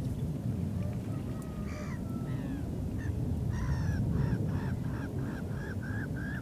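Black-headed gulls calling: a couple of harsh single calls, then from about three and a half seconds in a run of short, evenly spaced calls at about three a second, over a steady low rumble.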